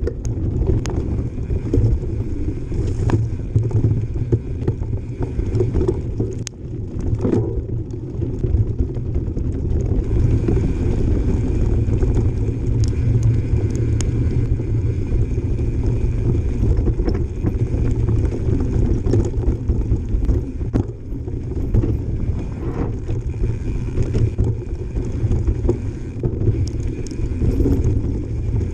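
Mountain bike descending a dirt trail: tyres rumbling over the ground, with knocks and rattles from the bike over bumps, wind on the microphone, and a freehub buzzing as the rider coasts.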